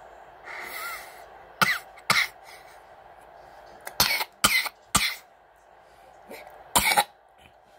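A girl coughing in short, sharp bursts: two coughs, then three in quick succession, then a last double cough near the end.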